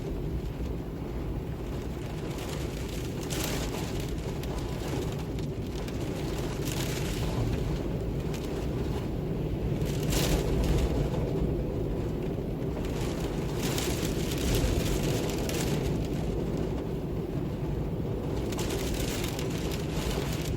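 Wind blowing with a steady low rumble, rising into gusts every few seconds that bring a brief hiss.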